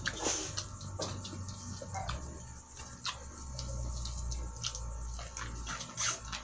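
Biting kernels off an ear of sweet corn on the cob and chewing, with short crisp crunches about once a second, the loudest about six seconds in.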